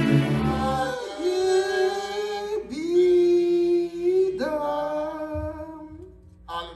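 Instrumental music fading out, then a lone voice singing three long held notes with no accompaniment.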